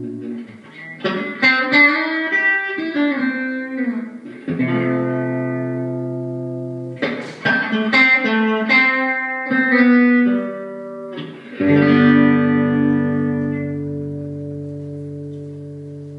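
Guitar improvising: fast phrases of picked notes with bent pitches, each ending on a chord left to ring. The last chord, about twelve seconds in, slowly fades.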